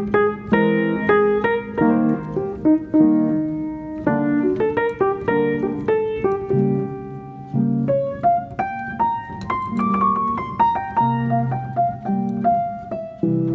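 Background piano music: a steady run of single notes over chords.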